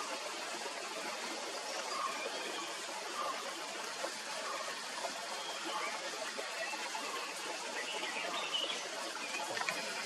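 Forest ambience: a steady rushing hiss like running water, with faint, short bird calls scattered through it.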